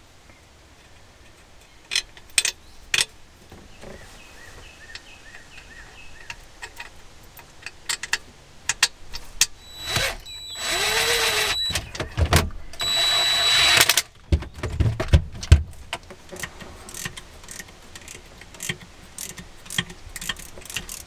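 A power drill runs twice around the middle, each run about a second and a half with a steady whine, driving in screws. Clicks and clinks of tools and parts being handled come throughout, with a few low knocks after the drill stops.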